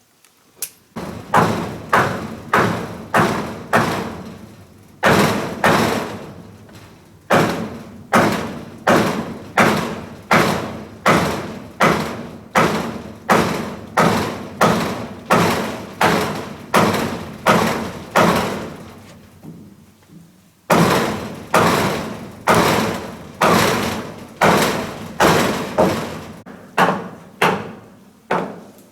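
Repeated heavy blows of a tool striking, nearly two a second, each with a short ringing tail. They come in runs, broken by brief pauses and by one longer pause about two-thirds of the way through.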